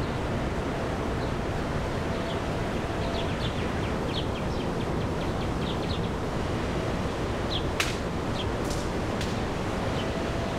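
Outdoor ambience: a steady rushing noise like wind, with birds chirping in a quick run of short high notes. A single sharp click comes in the second half.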